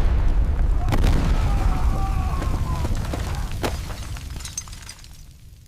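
Explosion: a deep boom that hits suddenly and rumbles away over about five seconds, with a few sharp cracks in it.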